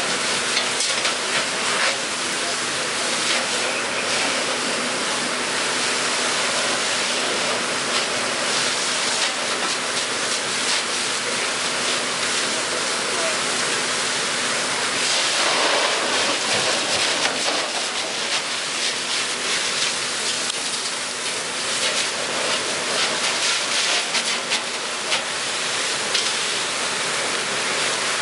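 Fire hose stream spraying onto smouldering burnt debris: a steady rushing hiss of water and steam, with a faint steady hum underneath.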